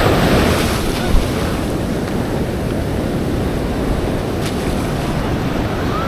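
Ocean surf breaking and washing on a sandy beach, a steady rush that swells as a wave breaks right at the start. Wind rumbles on the microphone underneath.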